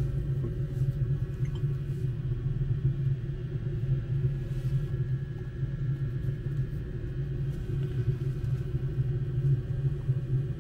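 Steady low rumble of a passenger minibus driving, heard from inside the cabin: engine and road noise with no change in pitch.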